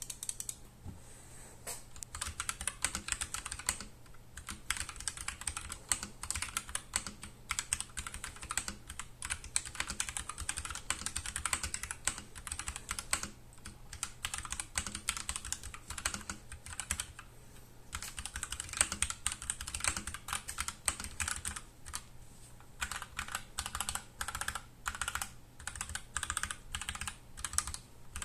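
Typing on an Akko 3068B Plus mechanical keyboard in stock form, with Akko V3 Cream Yellow Pro linear switches: a fast, dense run of key clacks broken by a few short pauses, turning into more even, regular keystrokes in the last few seconds.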